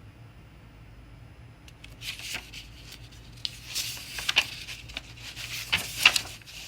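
Paper rustling as a picture-book page is handled and turned, with several crisp snaps, starting about two seconds in and lasting a few seconds.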